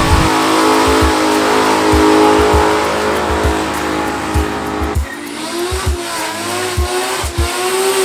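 Background music with a beat, mixed with a car engine revving hard and tyres spinning in a burnout. Pitched engine notes rise and fall from about five seconds in.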